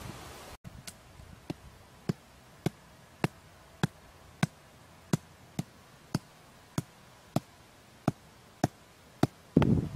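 Short wooden stakes being driven into the ground by hand-held hammering: sharp, even knocks a little under two a second. A louder burst of noise cuts in just before the end.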